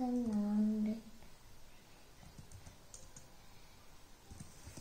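A person humming a held note that stops about a second in, followed by a few faint, scattered clicks.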